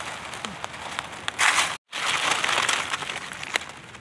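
Crunching and rustling of leaf litter and soil with small scattered snaps, as mushrooms are picked by hand from the ground. The sound breaks off completely for an instant a little under two seconds in, then carries on.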